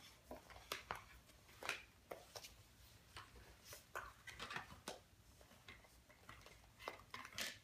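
Faint, scattered taps and rustles of large floor-puzzle pieces being picked up, shuffled and laid down on a wooden floor, about a dozen small clicks spread irregularly.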